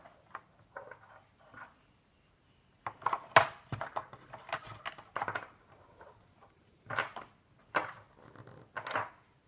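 Chunky acrylic bubblegum beads clicking and clattering against one another and the work surface in a string of short, irregular knocks as they are handled and threaded onto waxed cord, the loudest clatter about three seconds in.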